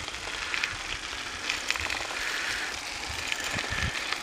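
Bicycle tyres rolling over an unpaved trail surface, a steady rough hiss with a low rumble, with a few small rattles and clicks from the bike about a third of the way in and again near the end.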